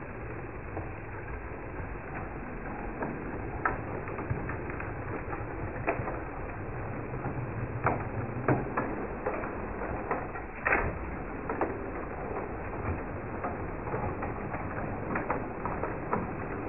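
A model railway train running past on unballasted track: a steady mechanical rumble of the locomotive's motor and wheels, with irregular sharp clicks from the wheels on the rails.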